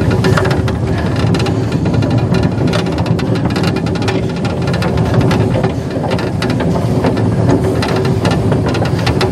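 Small one-foot gauge steam locomotive moving slowly under steam: a steady hissing rumble with many irregular clicks and clanks of running gear and wheels on the track.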